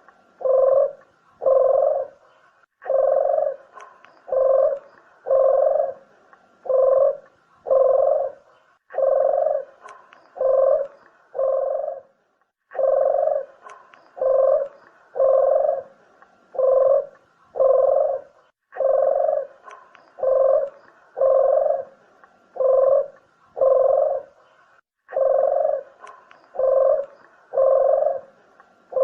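Ringed turtle dove (burung puter) cooing: low repeated coos, about one and a half a second, in phrases of five or six notes with a short break between phrases.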